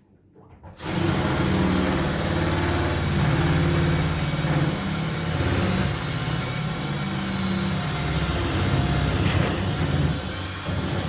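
Electric drill starting up about a second in and running steadily, a larger metal drill bit boring into the cylinder of a filing cabinet lock to enlarge the hole.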